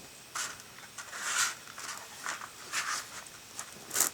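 Hands digging through loose garden soil for potatoes: a run of irregular short rustles and scrapes, the loudest near the end.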